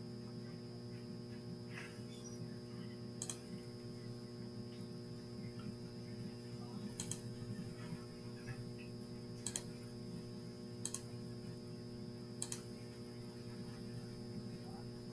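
A computer mouse clicking about five times, a second or few apart, over a steady electrical mains hum.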